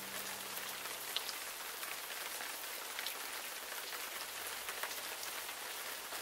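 Steady soft rainfall with scattered small drop ticks, a rain ambience track. The last notes of gentle background music die away in the first second.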